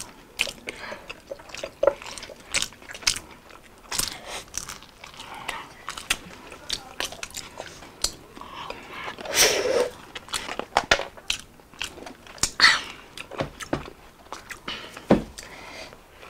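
Close-miked eating of crispy fried fast food: two people biting and chewing, with irregular crisp crunches and wet mouth clicks throughout.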